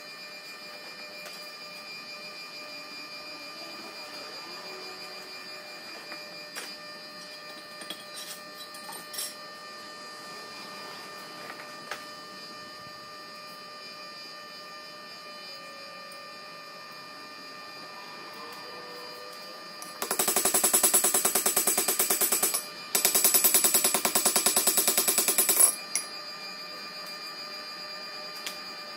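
Power hammer beating hot steel in two bursts of rapid, evenly spaced blows, each a few seconds long with a short break between, over a steady hum of shop machinery.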